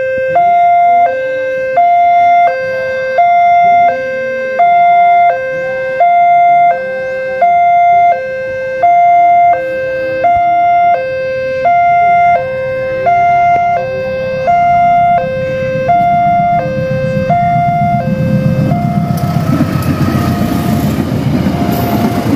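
Electronic level-crossing warning alarm sounding its two-tone chime: a lower and a higher note alternate, each held about 0.7 seconds, over a steady high tone. From about 18 seconds in, the rumble of an arriving passenger train rises beneath it and partly covers the alarm.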